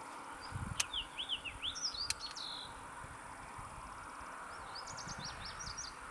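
A songbird singing two quick runs of rising and falling chirps, one in the first half and one near the end, over a steady faint insect hum. Two sharp clicks come early on.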